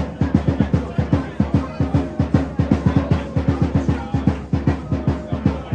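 A drum beaten in a fast, even rhythm of about six or seven low beats a second.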